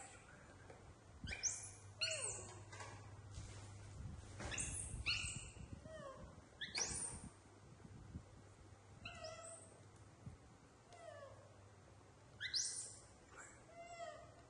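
Young macaques crying with short, high-pitched squeals that rise and fall, repeated every second or two, with softer low falling calls in between.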